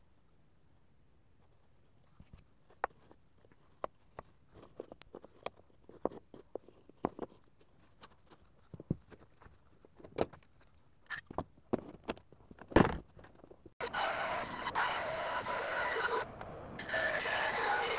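Glued-up wooden strips handled and shifted on a workbench: scattered knocks, taps and scrapes, one loud knock among them. Then a scroll saw starts and runs with a steady buzzing chatter, cutting the wood, with a short break before it runs on.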